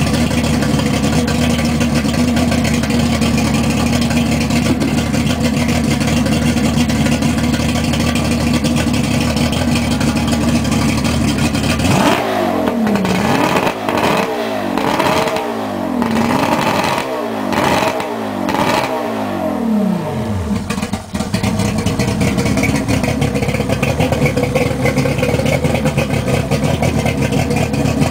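Mercury EFI 225 hp V6 two-stroke outboard running steadily at idle. About twelve seconds in it is revved up and down repeatedly in quick blips for some eight seconds, then settles back to a steady idle.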